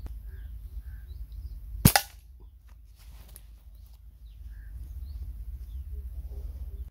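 Flat-band slingshot shot released once, about two seconds in: a single sharp crack with a brief ringing tail.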